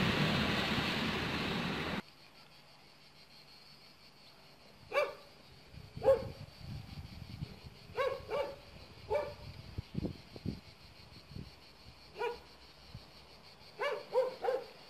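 A dog barking in short single barks and pairs, about nine in all, a second or more apart. Before the barking, a loud rushing noise fades and then cuts off suddenly about two seconds in.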